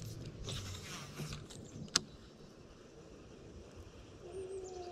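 Baitcasting reel during a cast. A sharp click is followed by a short whir of the spool paying out line, and about two seconds in a second sharp click comes as the reel is engaged for the retrieve.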